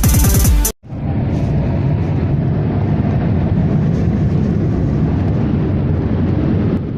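Electronic music cuts off abruptly just under a second in, followed by a steady low rumbling noise.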